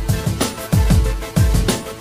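Electronic background music: deep bass kicks that drop in pitch, several a second, under held synth chords.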